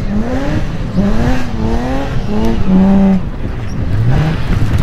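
BMW E36 rally car engine revving hard under acceleration, its pitch climbing and dropping back again and again as the driver shifts and lifts, held high briefly near the middle and climbing again near the end.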